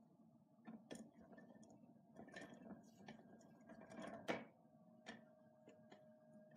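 Faint irregular clicks and knocks from a hand-cranked zaguri, its cast-iron gear wheel turning a wooden frame that winds on yarn. The loudest knock comes about four seconds in, after which there are only a few scattered clicks.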